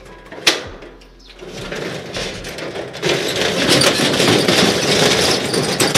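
A sharp click at the shutter's lock, then a corrugated steel rolling shop shutter being hauled up, its slats rattling and scraping, growing louder and loudest over the last three seconds.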